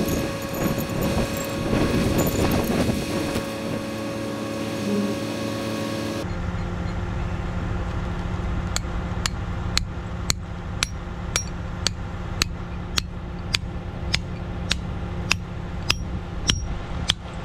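Small sledgehammer striking the threaded steel anchor bolts set in a concrete footer. The blows come at an even pace of about two a second, starting partway through, over a steady hum.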